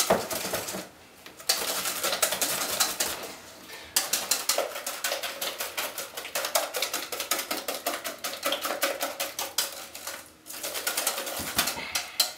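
Wire whisk beating a thick beeswax-and-oil cream in a stainless steel mixing bowl: rapid clicking and scraping of the wires against the bowl, with brief pauses about a second in and again near the end.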